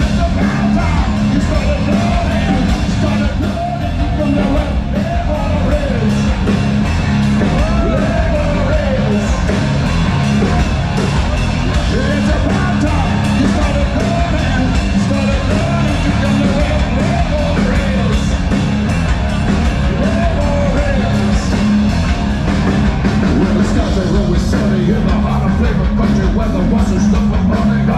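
Live hard rock band playing loud, heavy bass and drums under electric guitar, with the singer's voice singing and shouting over it. Heard from within the crowd at a club concert.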